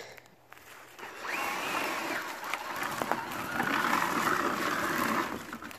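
RC crawler's sensorless 4600 kV brushless motor and drivetrain whining as the truck drives over dry leaves and sticks, with twigs crackling and snapping under the tyres. The whine comes in two spells, from about a second in and again past the middle.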